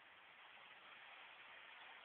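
Lego Technic Power Functions motors and gear train running as the motorized halftrack drives on carpet, a faint, steady mechanical noise that grows slightly louder.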